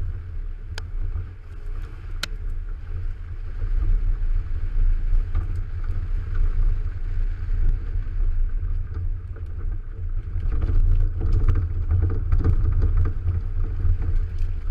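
Kia Sportage driving hard along a muddy dirt track, heard from a camera mounted on the outside of the car: a steady heavy low rumble of engine, tyres and wind on the microphone, with scattered clicks and knocks. It grows louder and busier about ten seconds in.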